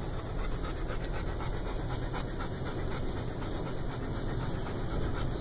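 A dog panting rapidly and steadily inside a vehicle's cabin, over the low rumble of the vehicle.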